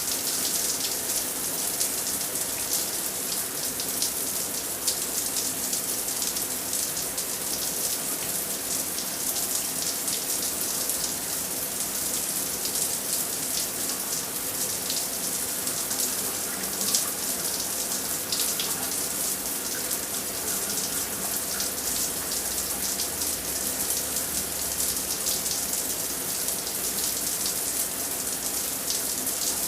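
A running shower, its spray falling steadily and hissing as it splashes down. The spray is constant, with a slight patter of individual drops.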